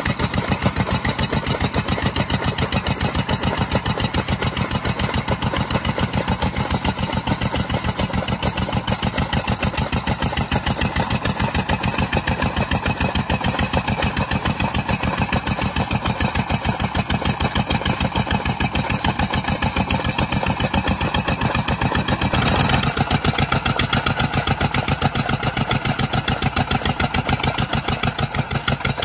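Single-cylinder stationary diesel engine running steadily with a fast, even chug, belt-driving a chaff cutter as green fodder stalks are fed in. A little over twenty seconds in, the sound briefly swells and its tone shifts slightly.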